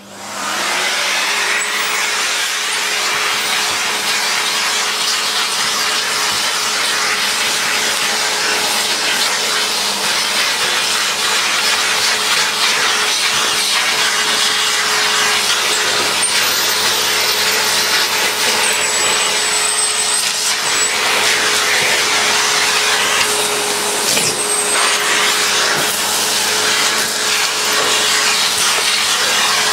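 Vacuum cleaner switched on, its motor spinning up within the first second, then running steadily with a constant whine and rush of air as its hose nozzle sucks dust and debris off an old, dirty vacuum cleaner casing.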